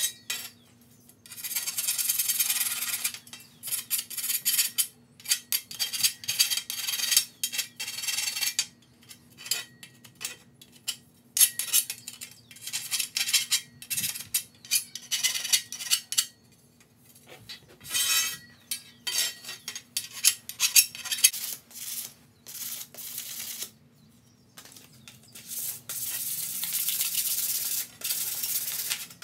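Hand file scraping along the cut edges of a steel Unistrut channel in repeated, irregular strokes, deburring the metal, with a longer run of steady rubbing near the end.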